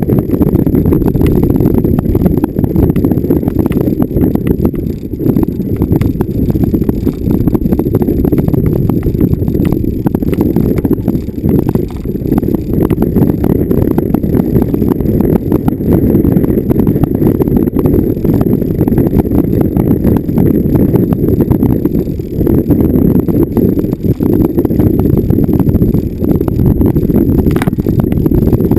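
Vehicle driving over rough off-road ground: a continuous low rumble with frequent small knocks and rattles as it jolts over bumps.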